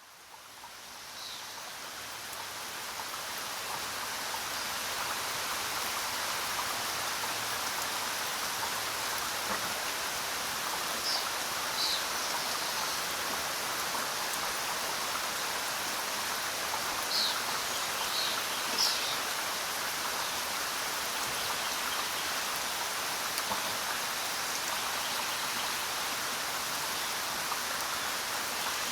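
Steady jungle rain falling as an even hiss, fading in over the first few seconds. A few short, high bird chirps come through it, about a dozen seconds in and again a few seconds later.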